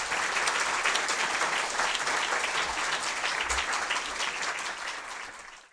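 Audience applauding, a dense patter of many hands clapping that fades near the end and then cuts off suddenly.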